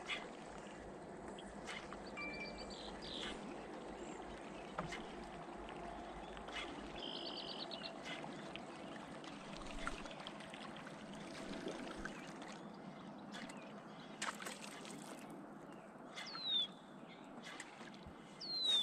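Quiet evening pond ambience: a steady soft hiss with light water trickling and lapping and scattered small clicks. Birds call over it, with short trills early on and two downward-slurring whistles near the end, the loudest sounds.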